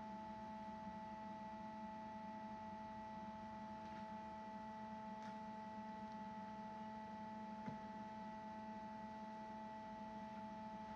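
Faint steady machine hum made of several held tones, with a few light clicks now and then.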